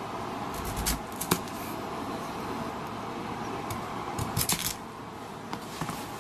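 Knife cutting through raw daikon radish: a few short, crisp snaps and clicks as the blade goes through and pieces are set down, about a second in and again around four seconds in, over a steady hiss.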